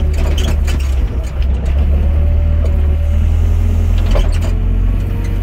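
Hydraulic excavator's diesel engine running steadily under load, heard from the operator's cab, with a faint whine from the hydraulics as the boom and bucket swing. Occasional short knocks from the machine.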